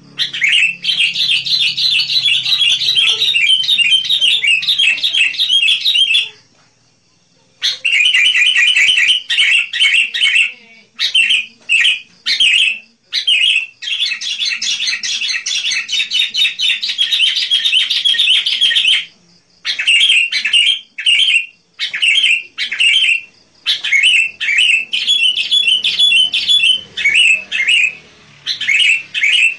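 Sooty-headed bulbul song: long, fast runs of bright chirping notes, broken by a short pause about six seconds in and another brief one around two-thirds of the way through.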